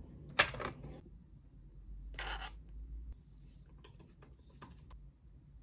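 Small desk handling sounds: one sharp click about half a second in, a short scraping rustle about two seconds in, then a few light taps of laptop keys near the end.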